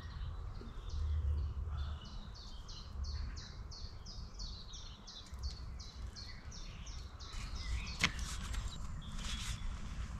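A songbird singing a long run of short, evenly spaced high notes, about three to four a second, which stops about three quarters of the way through; a few brief knocks or rustles follow near the end.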